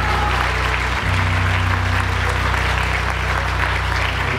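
Audience applauding over music with held low notes.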